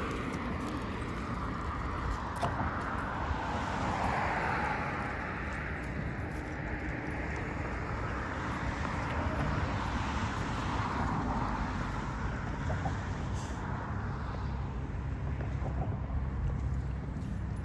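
Road traffic going by, with tyre and engine noise that swells and fades as cars pass, about three times, over a steady low rumble.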